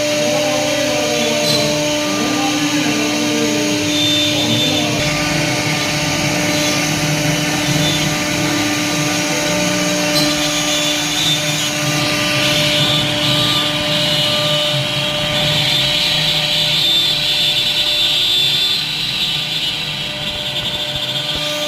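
CNC router running: the 4.5 kW spindle motor gives a steady whine. Over the first few seconds, motor whirs rise and fall in pitch as the machine moves, over a steady noisy hiss.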